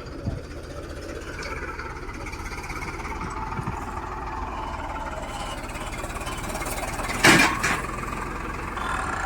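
Farmtrac 6055 tractor engine running steadily, with one short, loud bang about seven seconds in.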